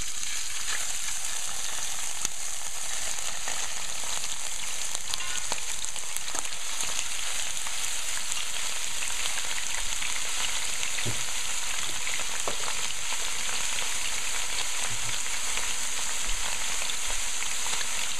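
Pieces of blanched mutton frying in hot oil: a steady sizzle with scattered crackles.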